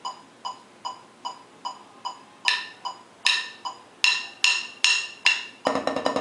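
Metronome clicking at 150 bpm, with louder clicks on the beat joining in about halfway. Near the end, a fast, even single-stroke roll on a rubber practice pad starts, about ten strokes a second.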